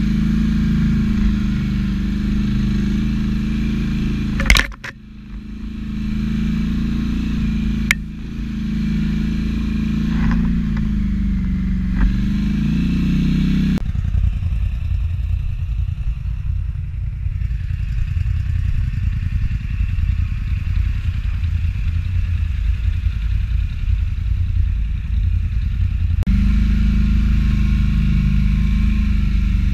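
ATV engine running while the quad is ridden along a rough trail, a steady low hum with a sharp knock about four and a half seconds in and a smaller click a few seconds later. The sound turns to a rougher, noisier rumble through the middle stretch, then back to the steady hum near the end.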